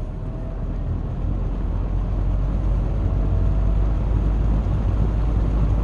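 Galaxy 20-inch two-speed box fan running up on low speed: a rushing, rumbling air noise that builds over the first two to three seconds, then holds steady.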